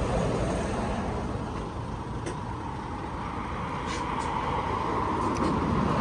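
Car transporter truck running while a car is unloaded down its tilting deck: a steady mechanical hum with a whine that grows a little stronger near the end, and a few light clicks.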